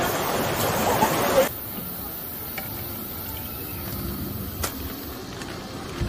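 A louder mixed sound cuts off abruptly about a second and a half in. It gives way to the low, steady hiss of a portable gas stove burner under a pot of fish-cake skewers, with a single click near the end.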